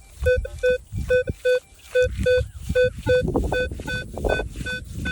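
Metal detector giving a run of short, mid-pitched beeps, about two to three a second, as the coil is swept back and forth over a buried target that reads as a 12 signal, with rustling of tall grass underneath.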